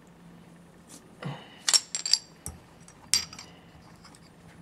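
Metal parts of a dismantled Makita demolition hammer clinking and knocking together as they are handled: a handful of sharp clinks with a short metallic ring, bunched in the middle. A low steady hum runs underneath.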